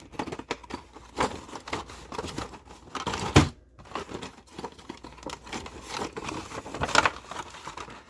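A Hot Wheels 5-pack's cardboard and plastic blister packaging being torn open by hand: irregular crinkling and tearing, with one loud snap about three and a half seconds in.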